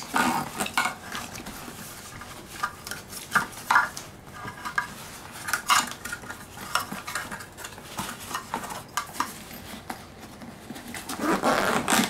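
Plastic vacuum hose and attachments knocking and rustling as they are stuffed into a fabric storage bag, a string of irregular clicks and clatters.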